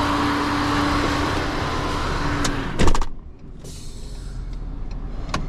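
A motor on the car-carrier trailer runs with a steady hum and a held tone, then cuts off with a loud clunk about three seconds in, leaving a lower, quieter rumble.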